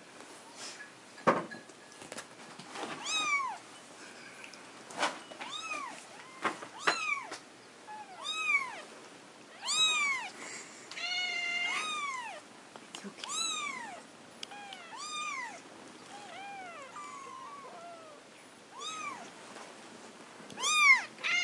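Young kittens mewing over and over, short cries that rise and fall in pitch, about one a second, with one longer drawn-out cry near the middle. A few sharp knocks in between, the loudest about a second in.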